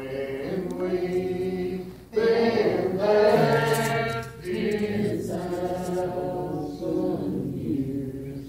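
Church congregation singing a hymn together in slow, held lines of about two seconds each, with brief breaks between lines.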